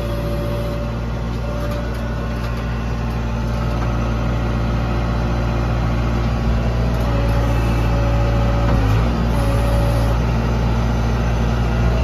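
Case 580L backhoe loader's four-cylinder diesel engine running at raised throttle, heard from inside the cab while the backhoe hydraulics are worked. A higher whine comes and goes several times over the steady engine note, which grows slowly louder.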